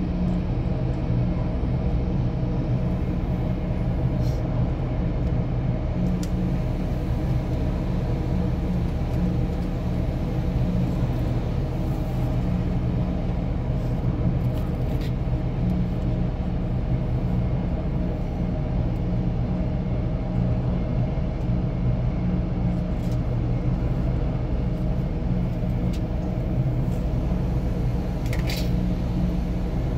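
An engine running at a steady speed, a constant drone with a fixed pitch. A brief sharp sound comes near the end.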